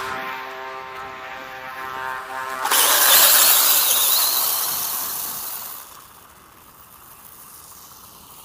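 Brushless electric motor of a ZD Racing Phantom 400 RC dirt bike whining at a steady pitch. Nearly three seconds in, a sudden loud hissing rush takes over for about three seconds and then dies away, leaving a faint hiss.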